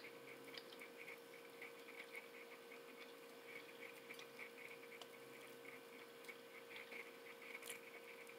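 Faint chewing of crispy fried chicken coated in crushed Flamin' Hot Hot Fries: soft crunchy ticks, about three or four a second, over a steady low hum.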